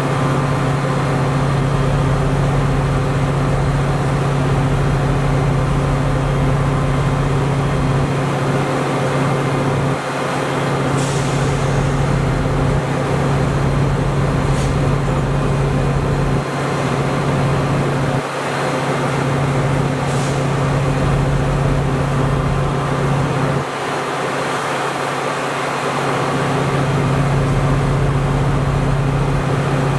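CTA 'L' elevated train running over steel elevated track, a steady rumble under a strong low hum that drops out briefly a few times.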